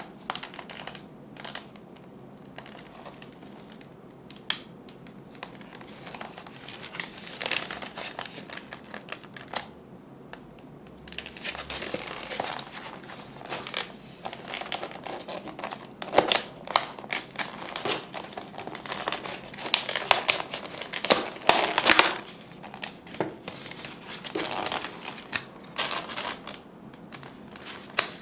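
Cardboard sleeve and clear plastic packaging of a packaged sushi roll rustling and crinkling as hands slide the sleeve off and handle the pack, in irregular crackles that grow denser and louder from about halfway.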